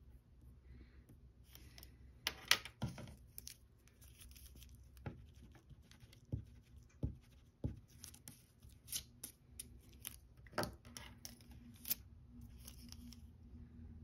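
Graphite pencil drawing on paper: short scratchy strokes with sharp ticks at irregular intervals, the loudest cluster about two and a half seconds in.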